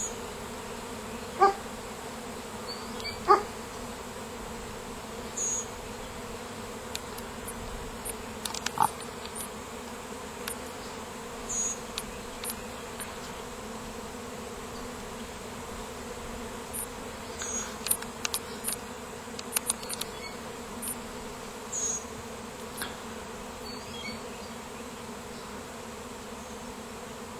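A swarm of honey bees humming steadily as it gathers on and moves into a swarm trap, with brief louder buzzes now and then.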